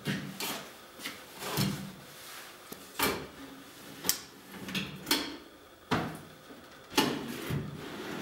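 Oak drawers sliding in and out on metal drawer slides, with a rattling run of the slides and a sharp knock or clack about once a second as the drawers are pushed home and the slides are handled.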